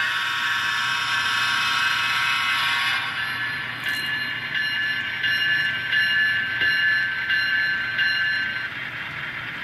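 N-scale GE Tier 4 GEVO (ET44AC) model's ESU LokSound decoder playing diesel engine sound through its small onboard speaker: a thin, high-pitched engine drone that is loud as the locomotive passes and fades after about three seconds. Then faint clicks about twice a second as the freight cars roll over the track.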